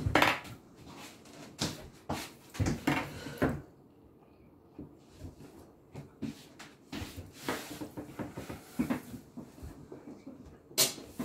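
Scattered knocks and bumps of a person getting up from a kitchen table and moving about the kitchen, handling things. A cluster of knocks comes first, then a quieter stretch, more knocks, and one sharp loud knock near the end.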